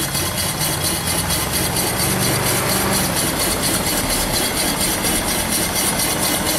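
Small homebuilt single-cylinder steam engine (1.87-inch bore, 2-inch stroke) running steadily on steam from its vertical fire-tube boiler, its exhaust giving a fast, even beat.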